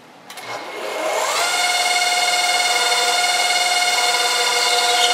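Knee mill's spindle motor switched on, its whine rising in pitch over about a second and then running at a steady tone. Near the end there is a short rough scratch as the countersink bit chamfers an injector hole in the blower top plate.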